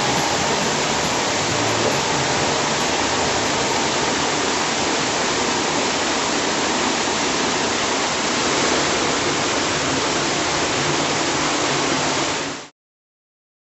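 Steady noise of rushing water, which cuts off suddenly near the end.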